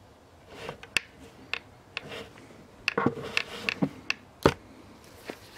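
A series of sharp, irregular clicks and knocks, about a dozen of them, the loudest about four and a half seconds in.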